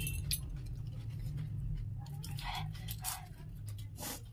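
Crisp fuchka (pani puri) shells crunching as they are chewed and cracked open, several short separate crunches over a steady low hum.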